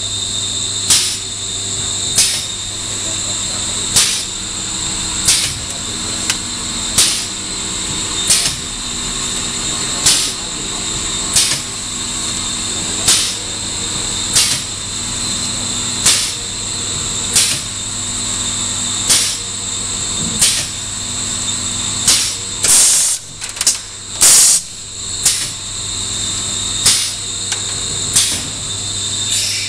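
Errepi Vittoria 1600 automatic roll-winding machine running: a steady hum under a high-pitched whine, with a short sharp sound repeating about every second and a half as it cycles, and a few louder ones close together a little past the middle.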